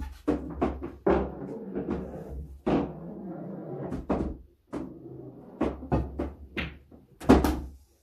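Irregular sharp clacks and knocks of pool play on a small pool table, including the cue striking the cue ball, the cue ball hitting the object ball, and that ball dropping into a pocket. The loudest knock comes near the end.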